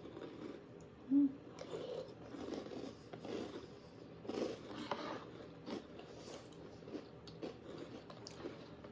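Chewing and crunching of a mouthful of crunchy chocolate cereal, in irregular crackly bites, with a brief low hum about a second in.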